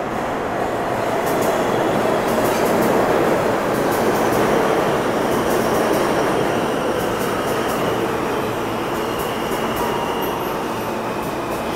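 R160 New York City subway train running through the underground station: a loud, steady rumble of wheels on rail with scattered clicks. It grows louder over the first second or two, then holds.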